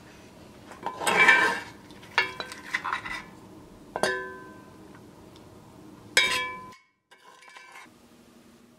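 Kitchenware clinking as the tomato-egg stir-fry is dished from an enamelled cast-iron pot onto a porcelain plate of rice. There is a scrape, a run of light clinks, then two sharp ringing clinks about two seconds apart, before the sound cuts off suddenly.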